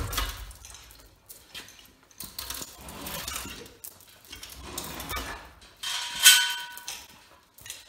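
Metal parts of a generator being worked on a chain hoist: irregular clanking, scraping and chain rattle, with one loud ringing metal clang about six seconds in.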